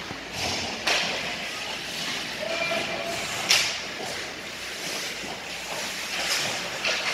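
Ice hockey play in a rink: skates scraping the ice over a steady wash of arena noise, with several sharp knocks of sticks and puck, the loudest about three and a half seconds in.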